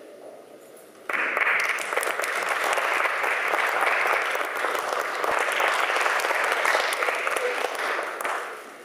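Audience applauding: the clapping breaks out suddenly about a second in, holds steady, and dies away near the end.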